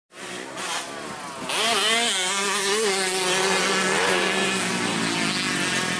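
Dirt bike engine revving. It gets louder about a second and a half in, its pitch rises, then holds and wavers up and down with the throttle.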